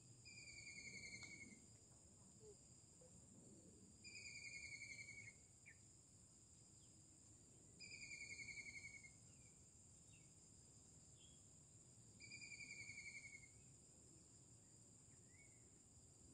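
Steady high-pitched insect drone, faint overall, with a pulsed trilling call repeated four times, about every four seconds, each a little over a second long and falling slightly in pitch.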